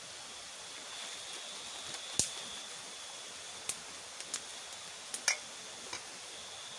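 Several short, sharp clicks and taps, the loudest about two seconds in and a close pair a little after five seconds, over a steady hiss with a faint, steady high-pitched tone.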